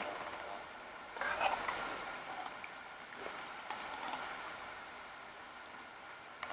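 Soft close-up eating sounds, chewing a mouthful of soup, loudest about a second in, with a few faint clicks.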